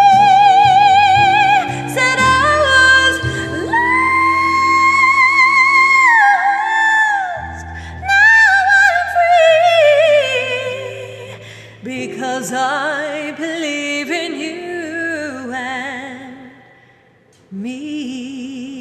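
A woman singing over a backing track with sustained bass and chords: long held notes with wide vibrato and sliding runs, climbing to a high held note, then softer, lower phrases. The music dips almost to silence near the end before a quiet sung phrase comes back in.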